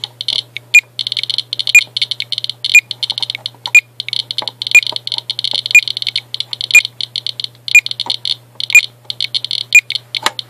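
Geiger counter clicking fast as it detects radiation from uranium-doped Vaseline glass, the clicks running together in dense stretches, with a sharper tick recurring about once a second.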